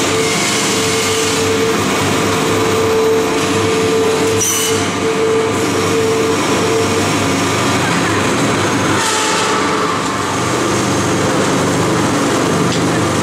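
Pulp egg tray forming machine running: a loud, steady mechanical drone with a held tone through the first half, and a short hiss about four and a half seconds in and again about nine seconds in.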